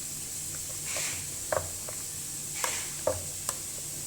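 Potato masher working through soft boiled potatoes, with a handful of irregular soft knocks as it strikes the bottom of the bowl or pot.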